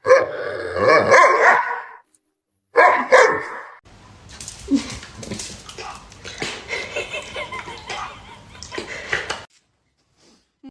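A dog barking in two loud bursts, the first about two seconds long and the second about one second, followed by a quieter stretch of scattered small noises.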